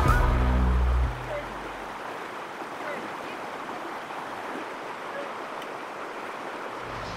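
Background music cuts off about a second in, leaving the steady, even rush of a fast-flowing river.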